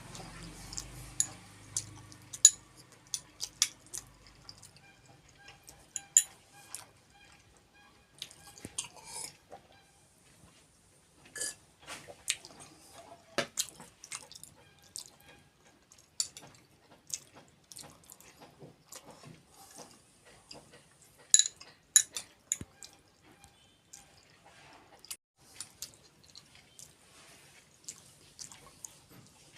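Close-miked eating of kheer and puri: wet chewing, lip smacks and irregular sharp clicks, some louder than others. Faint background music fades out in the first few seconds.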